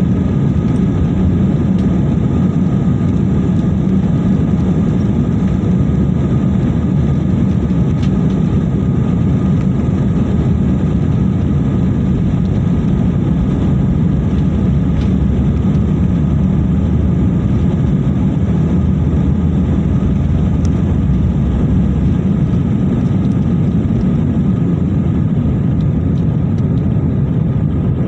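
Airbus A320-family airliner's twin jet engines at takeoff thrust, heard inside the cabin over the wing during the takeoff roll and liftoff: a loud, steady rumble with a faint whine above it.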